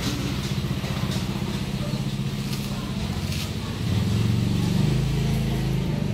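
A small engine runs steadily with a fast, even low pulse, growing louder about four seconds in.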